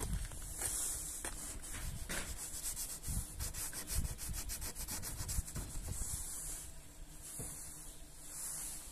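Fingertip scratching frost on a car windshield: a dry, scratchy rasp of ice against glass, coming in patches, with a quick run of rapid strokes in the middle.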